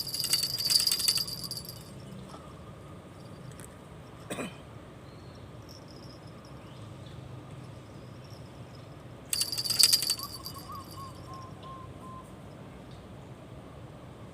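Small bells on set fishing rods jingling in two short bursts about nine seconds apart, the sign of fish tugging at the baited lines. A single light click comes between them.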